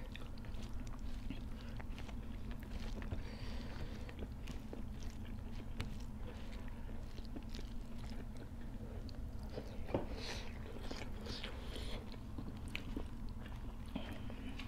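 Two people chewing and biting food by hand close to the microphone, with small wet mouth clicks and crackles, over a steady low hum.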